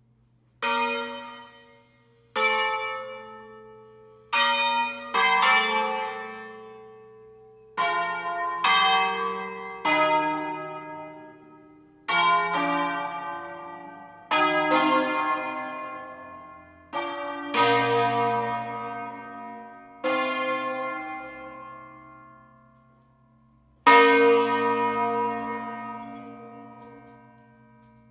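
A concerto of eight swinging church bells, Fratelli Barigozzi bells tuned in B♭, rung one stroke at a time. It gives about fourteen single strikes of different pitches at uneven spacing, each ringing and fading. The loudest comes near the end and is left to ring out over a low, steady hum.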